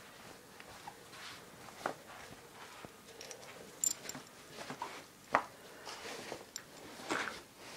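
A dog pawing and digging at a pillow to reach a squeaky toy beneath it: irregular fabric rustling and scratching scuffs, a few sharper than the rest.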